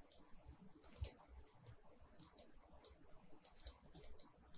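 Faint, irregular clicking of a computer mouse and keyboard, about a dozen short taps scattered through.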